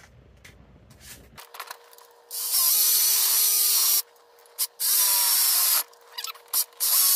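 A small high-speed power tool spinning steadily and cutting down an intake manifold vacuum-port fitting, with three loud bursts of grinding as the tool bites: about two seconds in, about five seconds in, and near the end.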